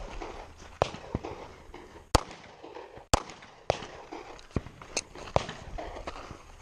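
Semi-automatic pistol shots fired at uneven intervals during a timed shooting stage, sharp cracks with the two loudest about a second apart near the middle, and movement noise between them.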